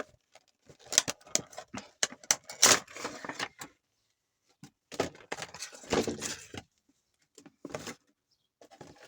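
A Funko Pop box being opened and the figure taken out of its packaging: a busy run of clicks, scrapes and rustles of cardboard and plastic, pausing briefly about four seconds in, then more handling and a few last taps near the end.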